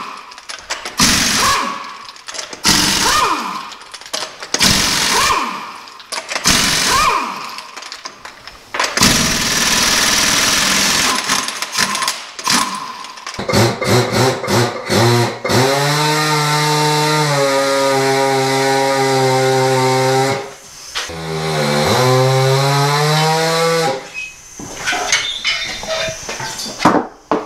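Air impact wrench buzzing in short repeated bursts as it spins lug nuts off a truck wheel. Then a tire changer's turntable motor runs with a steady hum, slows and stops for a moment, and spins back up while the tire is worked off its rim. Clanks of tools and tire near the end.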